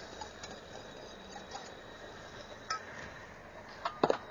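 Kitchen utensils clinking against a pan as crushed potato goes in: a few light scattered clinks, then a sharper clatter about four seconds in.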